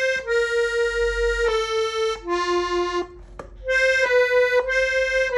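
Hohner diatonic button accordion in F playing a melody of held single notes on its treble buttons, with a brief pause about three seconds in before the phrase resumes.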